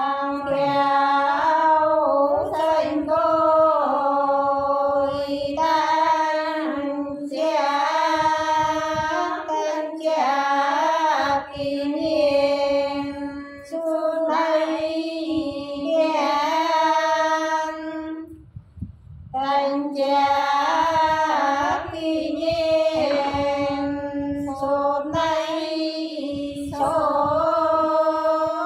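Sán Dìu women singing soọng cô, an unaccompanied folk song, in slow, long-drawn notes. There is a short breath break about two-thirds of the way through.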